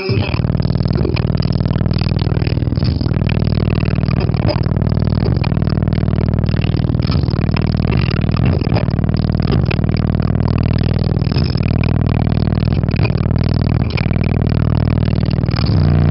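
Loud bass-heavy music from a car audio system, driven by two Skar Audio EVL 6.5-inch subwoofers in a small ported box tuned to about 30 Hz, heard inside a pickup's cab. The deep bass comes in suddenly at the start and dominates throughout.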